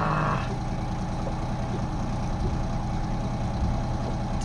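Outboard motor of a small aluminium boat idling steadily, an even hum that holds the same pitch throughout.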